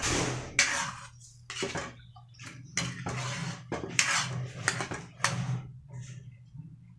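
Metal ladle stirring chicken in broth in a wok, with repeated scrapes and clinks of metal against the pan at irregular intervals. A low steady hum runs underneath.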